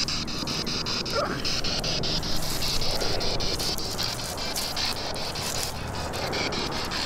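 A high insect trill going on without a break, rapidly and evenly pulsing, over a low rumble of wind or handling noise on the microphone.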